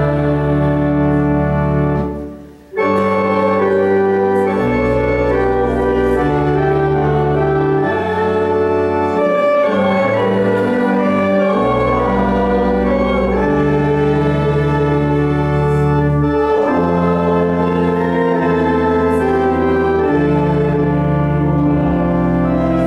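Church organ playing a slow hymn in long held chords, with a short break about two seconds in before the next phrase.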